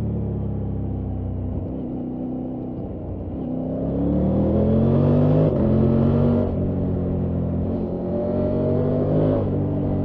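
Triumph Tiger 900 Rally Pro's three-cylinder engine pulling hard through the gears. The engine note rises under throttle from about three seconds in, drops with an upshift around halfway, rises again and drops with another upshift near the end.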